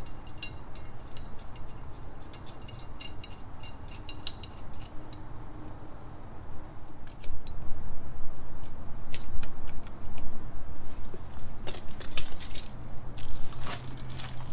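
Metal parts and tools clinking and rattling as they are handled, a string of sharp light clinks, getting louder with heavier knocks and handling noise about halfway through.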